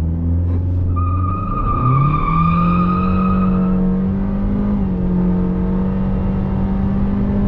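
Honda Civic 1.5 turbo four-cylinder accelerating hard through its CVT. After a low-revving launch the engine pitch jumps up about two seconds in and then holds almost constant while the car gathers speed, the CVT keeping the revs pinned. A high whistle runs over the first few seconds.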